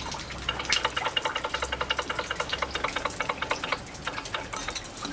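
Rapid, even metallic clicking, about eight clicks a second, as a Suzuki Address 110 scooter engine is turned over by hand; the clicking slows and softens after about three and a half seconds. The owner is chasing an unexplained ticking he suspects comes from the piston or the gudgeon pin.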